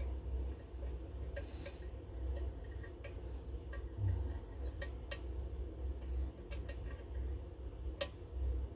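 Irregular small metallic clicks and ticks of a lock pick working the pin stacks of a Goal GCY-79 lock, over a low steady hum.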